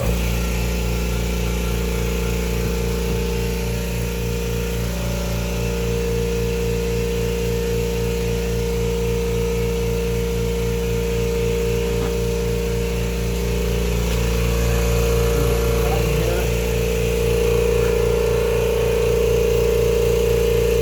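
Air compressor starting abruptly and running steadily to build pressure back up in its tank, its motor hum carrying a steady rapid pulse. It gets slightly louder about fifteen seconds in.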